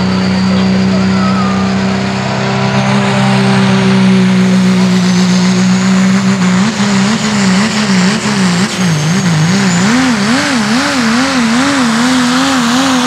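Diesel pulling truck's engine under full power on a pull. It holds a steady high-revving note, then about six and a half seconds in, as the truck drags the sled, the pitch starts wavering up and down about twice a second and climbs slightly.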